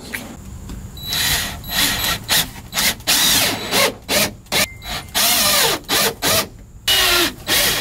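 Cordless drill driving screws through a plywood patch into a boat's deck, in a quick series of short stop-start trigger pulls with the motor whirring up and winding down.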